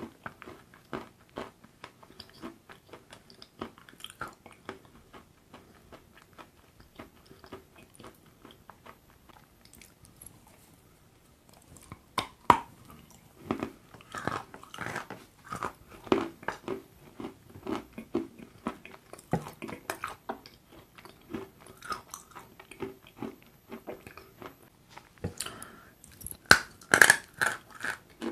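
Close-up crunching bites and chewing of a lump of chalk coated in chocolate paste. The chewing is soft at first and turns to louder, crisper crunches about halfway through, with the loudest crunches near the end.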